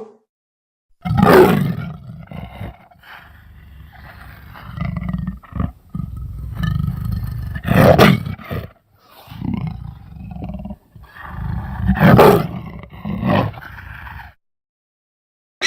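Animal-like creature roars as a sound effect: three loud roars spread through the stretch, with lower rumbling growls between them, stopping shortly before the end.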